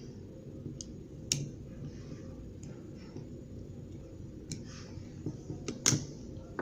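Scattered sharp metallic clicks, about seven spread out with two louder ones, as snap ring pliers work a snap ring into place on an AC compressor clutch pulley.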